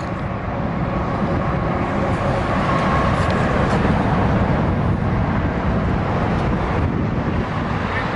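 Steady vehicle noise, a continuous low rumble with no distinct events.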